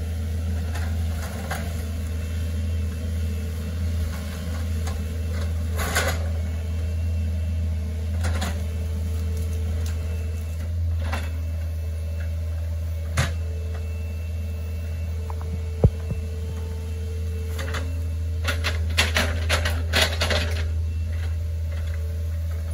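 Hitachi ZX48U mini excavator's diesel engine running steadily while the bucket digs out a ditch, with scattered knocks and rustles from the bucket working the soil and brush.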